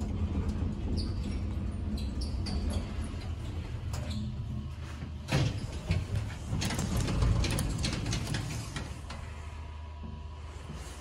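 A 1970 Express elevator car runs with a steady low hum as it arrives at a floor, stops with a couple of sharp clunks about five seconds in, and its sliding doors then open with a run of mechanical rumbling and rattling before things quieten.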